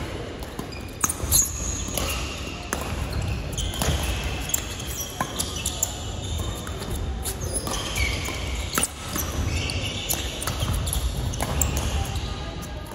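Badminton rally on a wooden indoor court: sharp racket-on-shuttlecock hits and footfalls, with short high shoe squeaks, echoing in a large hall.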